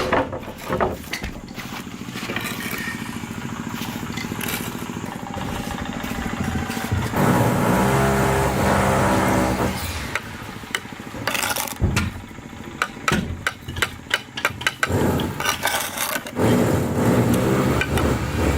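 A small engine running steadily in two louder spells, about seven seconds in and again near the end, among scattered knocks and scraping.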